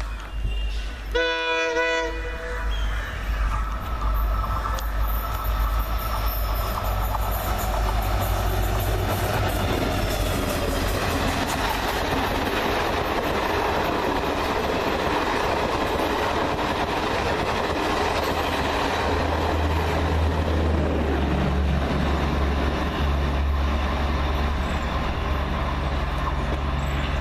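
Indian Railways WDP4D diesel locomotive (EMD two-stroke) gives one short horn blast about a second in. Then the express train runs past at speed, with the steady rumble and rush of its coaches going by.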